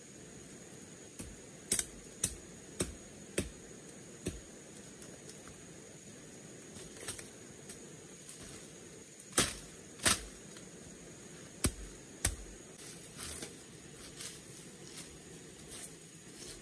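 Machete strokes chopping through undergrowth and into the ground. There is a quick run of sharp strikes in the first few seconds, two loud pairs of strikes around nine to ten and twelve seconds in, and softer rustling of cut leaves and brush between them, over a steady hiss.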